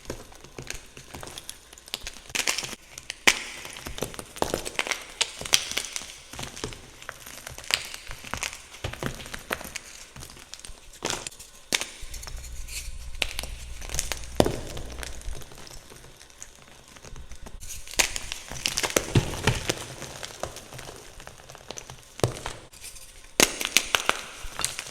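Blocks of gym chalk being crushed by hand, with irregular crisp cracks and crunches as the chalk breaks and crumbles. About twelve seconds in there is a low rumble for a few seconds, and the crunching comes thicker near the end.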